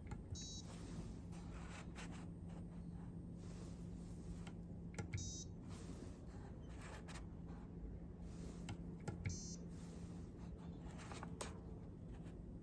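Piezo buzzer giving three short, high beeps several seconds apart, musical notes chosen by an ultrasonic distance sensor's reading. A steady low electrical hum and a few light clicks run underneath.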